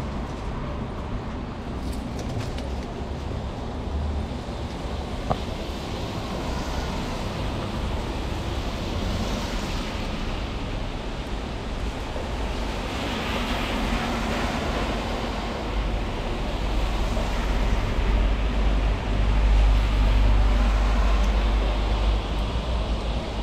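City street traffic: vehicles passing with a steady road noise and a low rumble that builds in the second half. A single sharp click about five seconds in.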